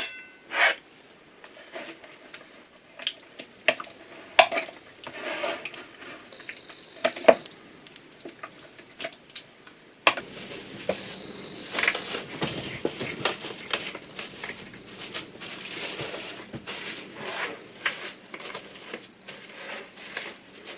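Sliced pork being mixed with its seasonings in a bowl: scattered clinks and scrapes of a utensil against the bowl, with wet squishing, becoming busier and more continuous about halfway through.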